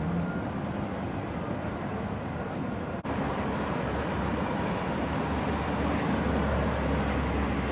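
Slow-moving cars passing on a street, with steady engine and tyre noise. The sound drops out briefly about three seconds in, then a low rumble builds as a car passes close.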